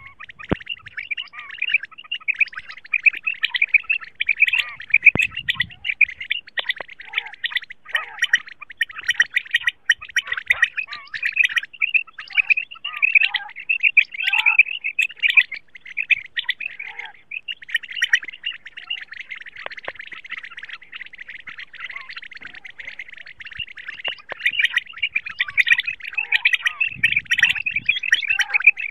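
Common quail calling: a dense run of quick, high chirping notes that repeats almost without pause, with only brief breaks.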